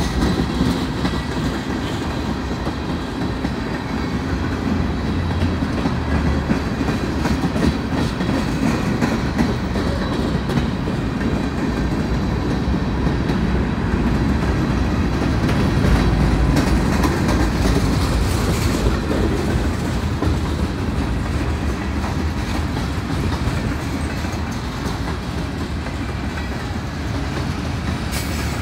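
Freight train's tank cars and covered hopper cars rolling past: a steady rumble with the clickety-clack of wheels clicking over the rail joints.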